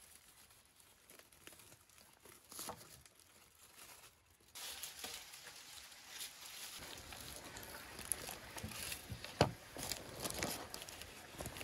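Aluminium foil and then baking paper being pulled open and crumpled by hand: irregular crinkling and crackling, sharpest about nine seconds in.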